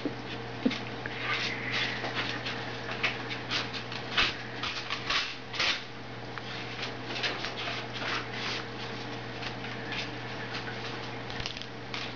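Irregular quick clicks and scratchy taps, most likely a parrot's beak and feet on a hard surface, over a steady low hum.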